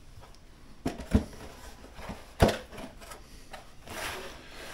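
Handling noise from a hard carrying case being moved and closed up: a few sharp knocks about one second and two and a half seconds in, with rustling and soft scraping between.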